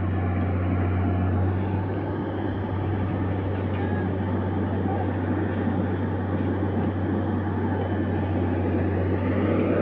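Steady low drone of a heavy diesel engine on railway track-renewal machinery, a constant hum under an even noisy haze.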